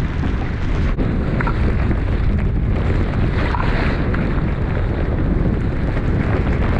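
Strong wind buffeting the microphone: a steady, loud, low rumbling noise.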